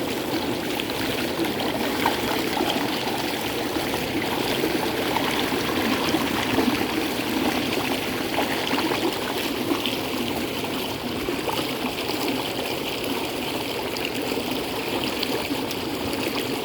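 Stream water at the top of a waterfall running and splashing over rocks: a steady, full rushing with small trickling splashes through it.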